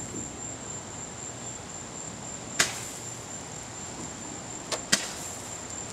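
Sharp firework bangs: one about two and a half seconds in and a quick pair near five seconds, over a steady high chirring of crickets.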